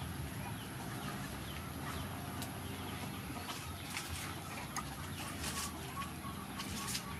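Chickens clucking, with short rustles of leaves and dry litter from about four seconds in.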